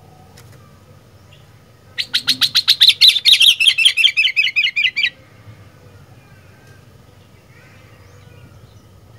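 Sooty-headed bulbul (kutilang) giving a loud, fast burst of rapidly repeated chattering notes for about three seconds, starting about two seconds in and stopping abruptly. A faint steady hum lies underneath.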